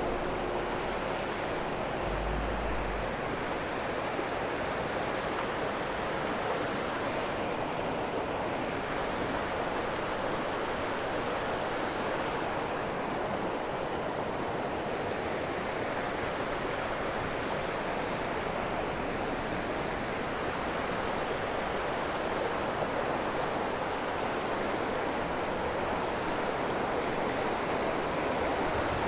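Shallow mountain creek rushing over rocks and logs: a steady, even rush of fast water.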